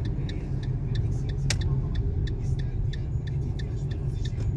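A car's engine and tyres on a wet road, rumbling steadily as heard from inside the cabin. Light ticks come throughout at about three a second, and one sharper click comes about one and a half seconds in.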